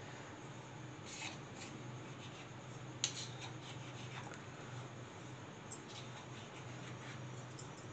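A knife cuts a sheet of rolled paratha dough into strips on a countertop: faint scrapes of the blade through the dough, with a few light taps against the counter, the sharpest about three seconds in. A low steady hum runs underneath.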